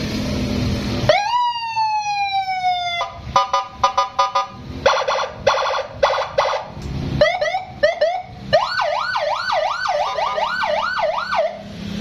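Custom police-escort electronic siren on a Yamaha NMAX scooter cycling through its tones. About a second in comes a long falling wail, then rapid stuttering pulses, a few short rising chirps, and finally a fast up-and-down warble.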